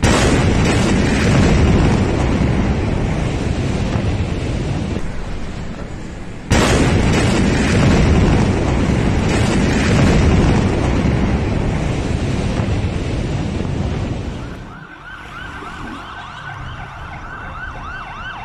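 Two explosion blasts from the Beirut port explosion, each hitting suddenly and followed by a long rumbling roar that slowly fades. About fifteen seconds in, the rumble gives way to emergency-vehicle sirens, their pitch sweeping up and down rapidly.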